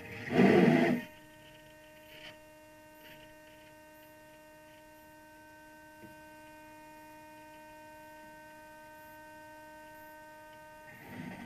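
A brief loud rush of noise lasting under a second, then a steady electrical hum made of several high, even tones that holds until it cuts off near the end.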